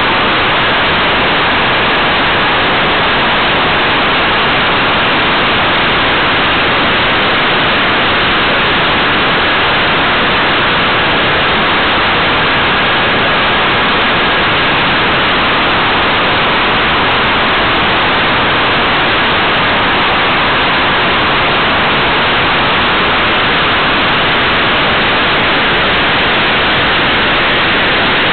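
Steady, loud rushing hiss picked up by a model aircraft's onboard camera in flight, with a faint steady high tone underneath.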